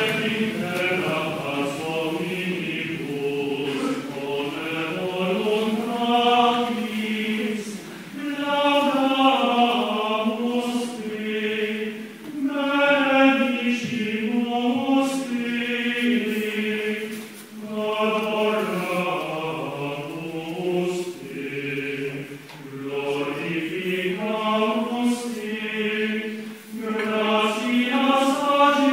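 Latin plainchant sung by voices during a sung Mass, in phrases of a few seconds with brief pauses between them.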